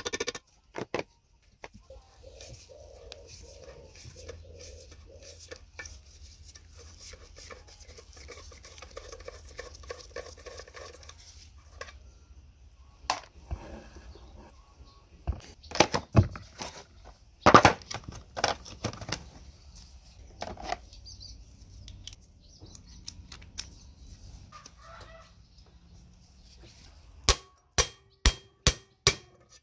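Hammer blows on a hand impact driver set on rusted screws in a chain hoist's steel casing. Scattered sharp metal strikes come in the middle, then a quick run of about six ringing blows near the end.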